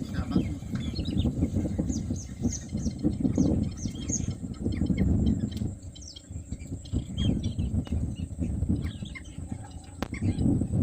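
Many wetland birds chirping: a busy scatter of short, high, falling calls over a low, uneven rumble.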